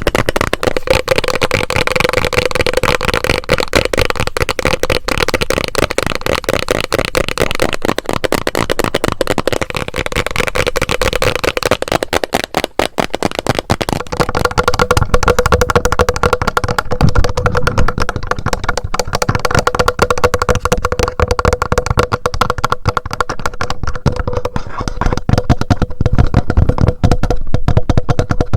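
Fast, continuous ASMR tapping on a plastic bottle, changing about halfway through to tapping directly on a TASCAM handheld recorder, where the taps come through with more low thumping.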